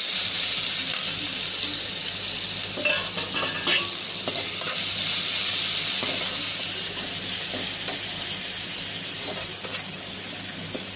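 Sliced onions sizzling in hot oil in a kadhai, with the spatula scraping and clicking against the pan as they are stirred. The sizzle eases off slowly toward the end.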